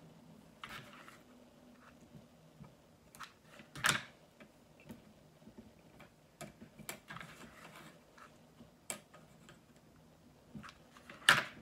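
Light clicks and taps of wooden popsicle sticks and a hot glue gun being handled on a wooden table, with two sharper knocks, one about four seconds in and one near the end.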